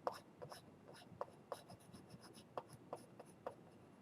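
Stylus scratching and tapping on the plastic surface of a Boogie Board 10.5-inch LCD writing tablet: faint, irregular short strokes of drawing.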